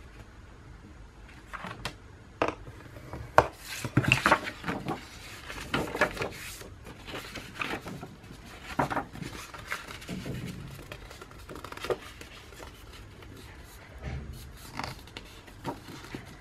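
Paper being handled and scored on a plastic scoring board: scattered rustles, light taps and short scrapes of cardstock and a scoring tool against the board.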